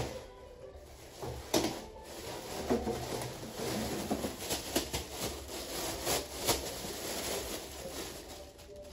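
Onions and potatoes handled into slatted wooden storage crates: irregular knocks of the vegetables against the wood, with rustling of a plastic bag as potatoes are tipped out of it.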